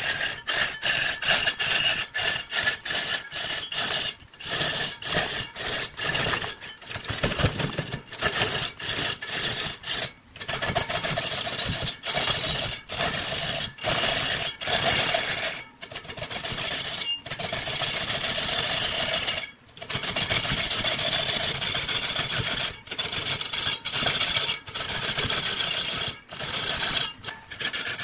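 Turning tool cutting into spinning wood on a wood lathe: a loud scraping, rasping noise, broken by many short gaps as the cut stops and starts again.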